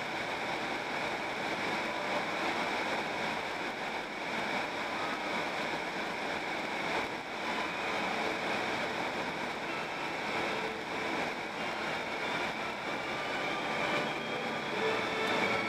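Steady road and tyre noise from inside a moving car cruising on a paved two-lane road.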